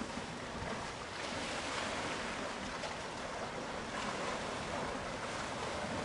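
Rough sea surf breaking in a small rocky cove: a steady rushing wash of waves.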